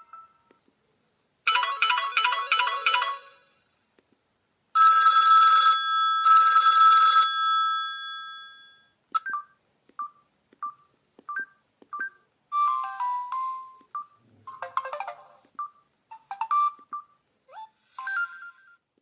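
Samsung GT-E2530 LaFleur mobile phone playing a run of its short message alert tones one after another: a quick patterned jingle, then a chime struck twice that rings out, then a string of short evenly spaced beeps and a few brief chirpy melodies.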